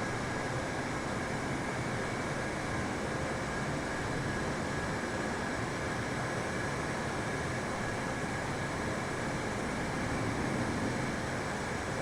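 Steady jet airliner noise: an even rush of engine and airflow with a faint steady whine, unchanging throughout.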